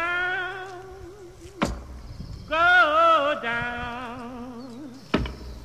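A voice singing long held notes with a wide, wavering vibrato, moving between a few sustained pitches. Two sharp knocks cut in, about a second and a half in and near the end.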